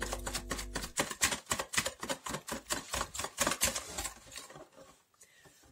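Wire whisk beating eggs into a kefir and sour-cream mixture in a bowl. It clicks against the bowl and splashes the liquid at about five strokes a second, then slows and stops near the end.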